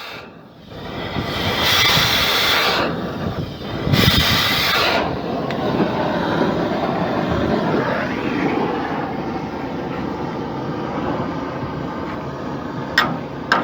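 Loud, steady machinery noise, with two brief hissing bursts in the first five seconds.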